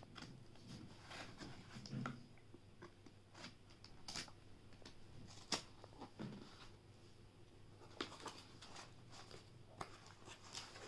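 Scissors cutting through packing tape on a cardboard parcel, then the cardboard rustling and scraping as the parcel is handled: faint, scattered crinkles and clicks.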